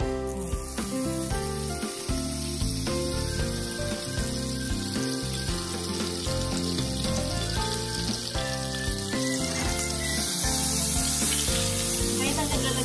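Butter and coconut oil sizzling and foaming in a hot cast-iron skillet. The sizzle starts suddenly as a block of butter goes into the pan and grows a little louder near the end. Background music plays underneath.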